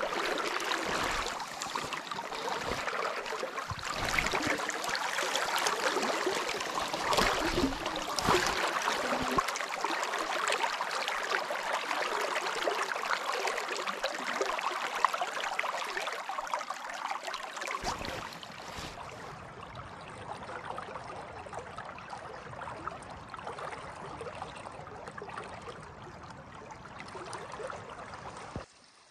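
River water flowing: a steady rushing wash, a little quieter from about two-thirds of the way through.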